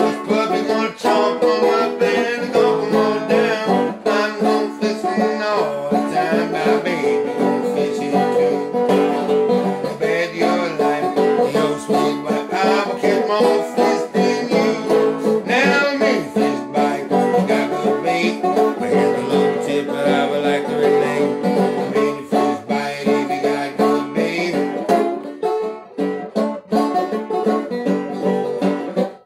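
Banjo picked in an old-time style: a steady, continuous instrumental break of plucked notes and strums.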